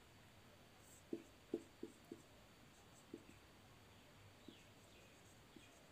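Dry-erase marker writing on a whiteboard: a few faint, short taps and strokes at irregular intervals over a low hiss.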